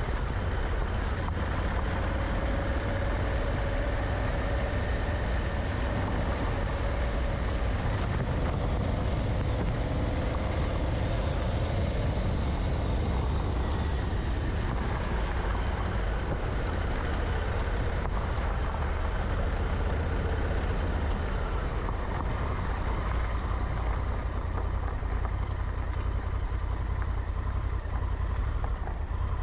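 Honda Africa Twin motorcycle engine running steadily under way, its pitch drifting gently up and down with the throttle, over a constant low rumble of tyres on a gravel track.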